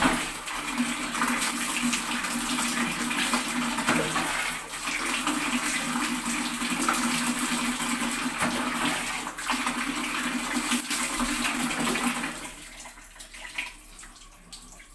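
Water pouring and splashing in a tiled bathroom as a mug of water is poured over the head to rinse hair, part of a bucket-and-mug bath. The flow runs continuously with a few sharper splashes, then stops about twelve seconds in.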